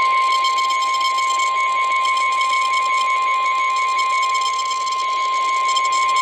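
NOAA Weather Radio warning alarm: a single steady, high-pitched 1050 Hz tone sounded as the weekly test signal. It comes through a radio receiver with a background of hiss.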